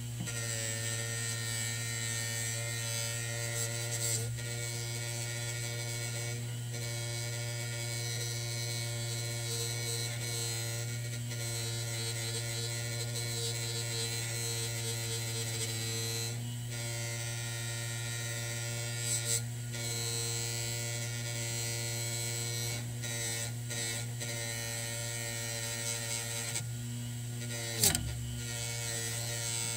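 Electric bench grinder motor running steadily, spinning a cloth buffing wheel while a steel sword blade is buffed against it. A short sharp tap near the end.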